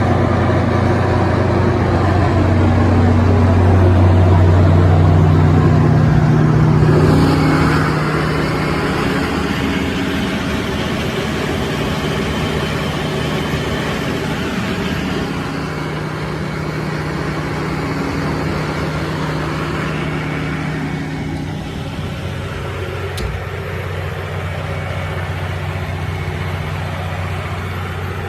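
John Deere 6081 inline six-cylinder diesel engine of a Kohler 180 kW generator set running steadily at constant speed. It is louder for the first seven seconds or so, then a little quieter.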